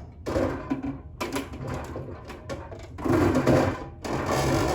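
Hard plastic parts scraping and rattling against each other as a Tower Garden part is slid down onto the top of the tower, in several rubbing strokes, the loudest about three seconds in.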